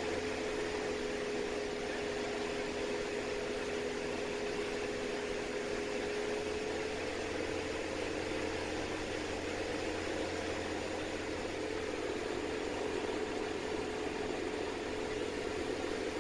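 Diamond DA40 light aircraft's engine and propeller droning steadily in the cockpit during an approach, with a steady hum tone through it.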